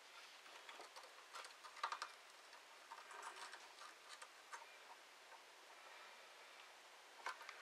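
Near silence with faint, scattered small clicks and ticks as small parts and a soldering iron are handled at the switch terminals.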